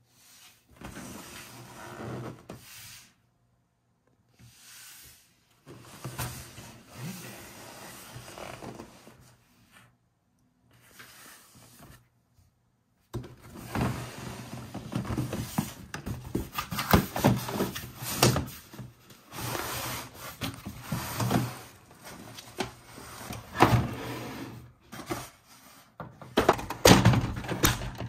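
Hands handling the cardboard box and plastic parts of a toy playset: rubbing, scraping and knocks. Sparse with short silent gaps at first, then busier and louder from about halfway through.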